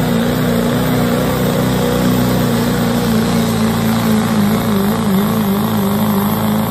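Open-class diesel pickup truck engine at full throttle pulling a weight-transfer sled, a loud steady drone whose pitch wobbles a few seconds in.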